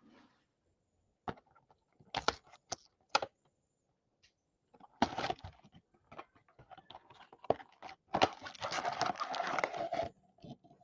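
A cardboard trading-card hobby box being opened by hand: a few sharp taps and clicks of cardboard, a brief rustle of the lid and flap about five seconds in, then a dense crinkling rustle from about eight seconds as the stack of foil card packs is slid out of the box.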